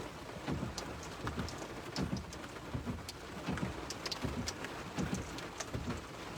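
Rain during a thunderstorm, with many drops tapping irregularly close to the microphone over a steady low rumble.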